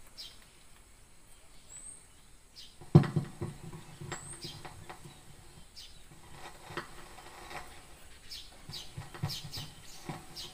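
Birds chirping, one giving a short high rising note every second or two, with a single sharp knock about three seconds in and a faint steady low hum after it.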